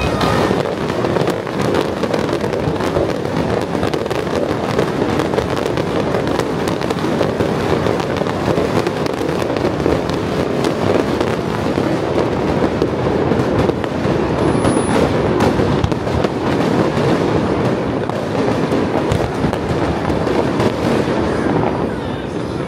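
Aerial fireworks show bursting overhead in a dense, unbroken barrage of bangs and crackles.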